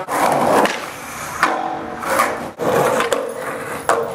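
Skateboard wheels rolling over pavement, with a couple of sharp clacks of the wooden deck: one about a second and a half in, another near the end.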